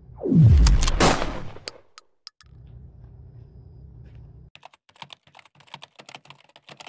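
Video-editing sound effects: a loud whoosh falling in pitch near the start, a few sharp clicks, then about two seconds later a rapid run of keyboard-typing clicks, as used for on-screen text typing out.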